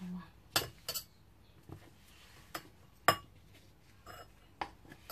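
About half a dozen short, sharp clicks and clinks of kitchen utensils and dishes being handled, the loudest about three seconds in.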